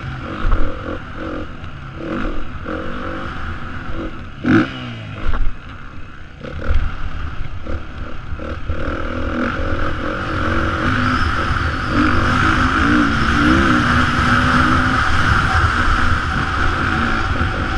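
Beta 430 RR-S single-cylinder four-stroke dirt bike engine revving up and down as it is ridden, with wind rushing over the helmet-mounted microphone. Several sharp knocks come about half a second, four and a half and just under seven seconds in. From about ten seconds the engine pulls steadily under load and the wind rush grows louder.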